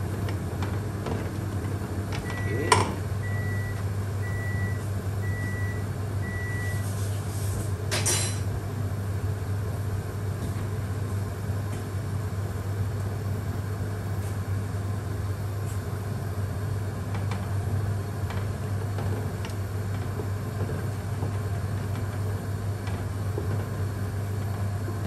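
Steady low kitchen hum, with five short electronic appliance beeps about a second apart a few seconds in. A sharp knock comes during the beeps, and a brief clatter about eight seconds in.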